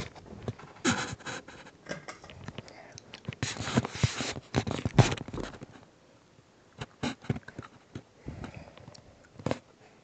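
Irregular rustling and clicking close to the phone's microphone, dense for the first five seconds or so, then only a few scattered clicks: handling noise.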